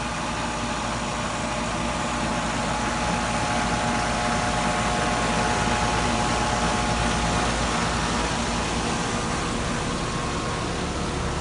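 Air conditioning unit running steadily: a constant hum with several fixed tones over the rush of its fan, and a deep rumble that fades out about two thirds of the way through.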